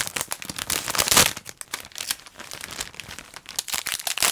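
A small clear plastic bag crinkling as fingers pull it open: a dense run of crackles, loudest for about the first second, then lighter crinkling.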